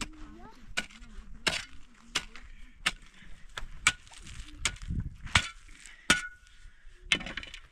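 Long-handled shovel digging a trench in stony soil: the metal blade strikes and scrapes into gravel and rock, giving a sharp clink roughly every three-quarters of a second, about nine in all.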